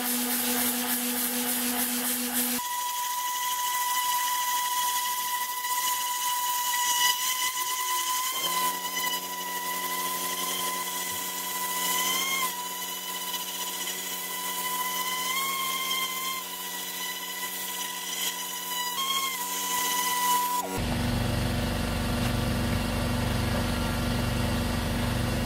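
Tornador air cleaning gun running on compressed air, blowing water into a carpet floor mat to rinse and blow out the loosened dirt: a steady high whistle over a hiss that wavers briefly a few times. About 21 seconds in the whistle stops and a low mechanical drone takes over.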